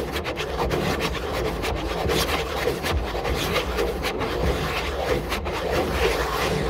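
Rough rasping, rubbing noise broken by many irregular short crackles, over a steady low rumble.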